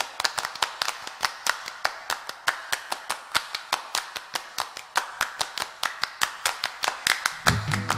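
Quick, even hand clapping keeping the beat of a song, with no singing. Bass and guitar come in near the end.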